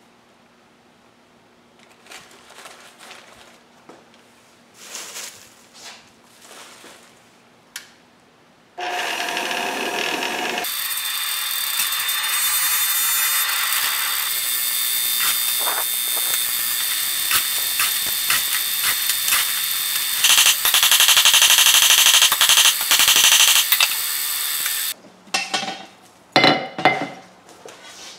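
Intermittent rustling and crackling of crumpled paper as the charcoal forge is lit, then an electric blower forcing air into the charcoal forge, starting abruptly about nine seconds in and running loud and steady with a high whine before it cuts off suddenly; a few knocks follow near the end.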